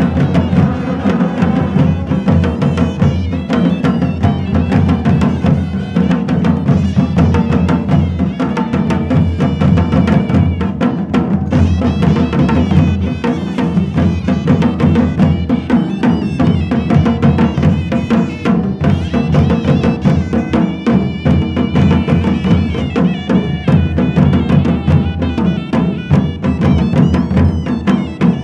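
Traditional Himachali deity-procession music played live: drums beaten continuously and densely, with wind instruments holding sustained notes above them.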